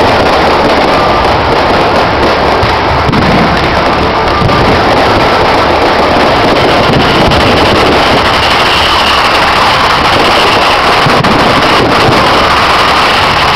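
Fireworks display: a loud, continuous barrage of crackling and bangs.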